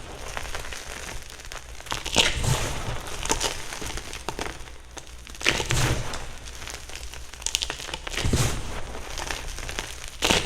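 Blocks of gym chalk being crushed: crisp crunches a second or two apart, with crackling and crumbling between them.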